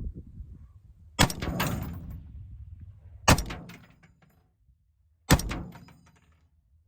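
Three single rifle shots from a 5.56 mm AR-15 fitted with a Lima6 belt-fed upper, about two seconds apart, each followed by a short echo.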